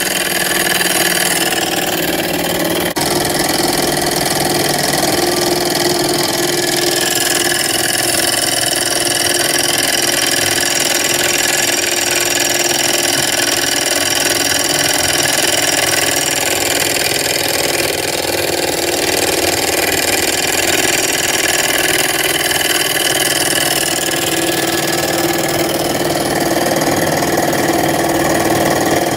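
Small Stirling engine running steadily at speed on an oxyhydrogen (HHO) flame while it turns a tiny DC motor as a generator, with a continuous mechanical running sound and hiss.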